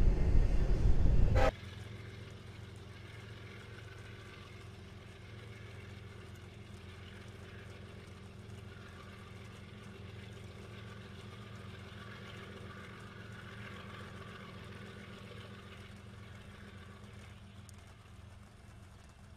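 Loud rumble of an approaching BNSF diesel freight locomotive that cuts off abruptly after about a second and a half. Then a much quieter, steady low hum of a BNSF diesel locomotive running as it approaches slowly.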